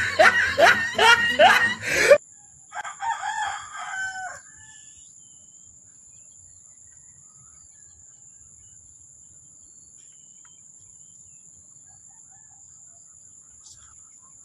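Music with laughter cuts off suddenly about two seconds in. A rooster then crows once, its call falling at the end, followed by a faint, steady high-pitched hum.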